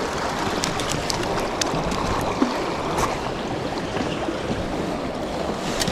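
Shallow creek water rushing steadily over a rocky riffle, with a few light clicks scattered through it.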